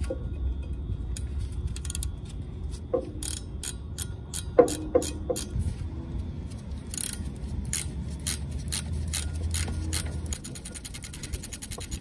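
Hand ratchet wrench clicking as it turns out the 14 mm bolts of a truck driveshaft's U-joint: scattered clicks at first, then a steady run of about five clicks a second.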